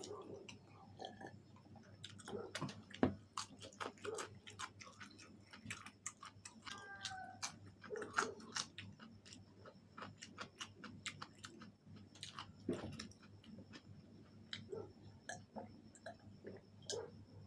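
A person chewing and biting fried chicken wings close to the microphone, with many small irregular mouth clicks.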